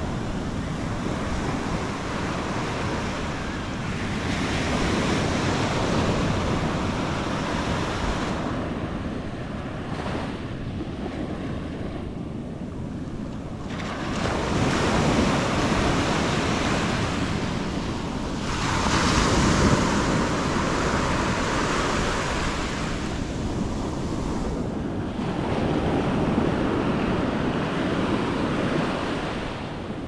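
Ocean surf breaking and washing up the sand at the shoreline, swelling and fading every several seconds, with wind buffeting the microphone.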